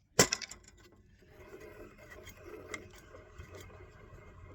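A sharp metal smack on the wrench loosening a surface grinder's left-hand-threaded wheel nut, about a quarter second in, followed by a few small clicks and then faint, uneven metal scraping and rubbing.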